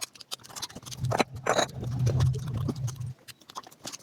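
Eating sounds played back sped up: a rapid stream of wet chewing and mouth clicks, with a louder low hum from about one to three seconds in.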